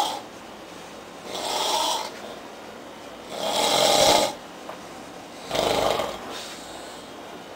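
A man snoring loudly in a heavy, drunken sleep: three rasping snores about two seconds apart, the middle one the loudest.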